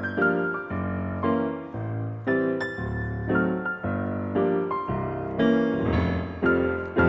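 Background piano music: gentle notes struck at a steady pace, each ringing and fading.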